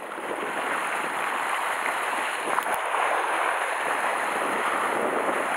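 Sea surf washing against a rocky shore: a steady rushing of breaking waves.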